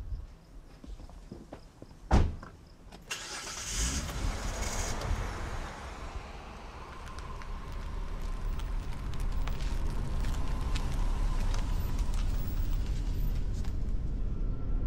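A car door shuts with a thump about two seconds in. A second later the car's engine starts with a brief whirr, then runs with a steady low rumble that grows louder over several seconds and then holds.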